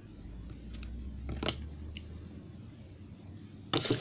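Close-up chewing of a bite of pizza, with a few sharp clicks, the loudest cluster near the end.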